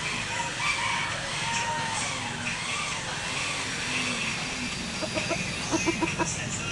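Bantam rooster clucking, with a quick run of short clucks about five to six seconds in, over steady background noise.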